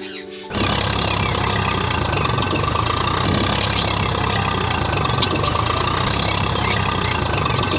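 Tractor engine running steadily, cutting in abruptly about half a second in.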